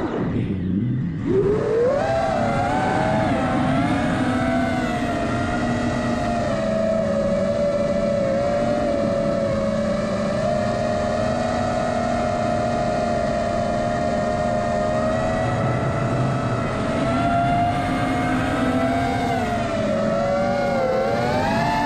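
Radio-controlled model aircraft's motor whining in flight. The pitch drops sharply just after the start, climbs back within a couple of seconds, holds fairly steady, then wavers up and down near the end as the throttle changes.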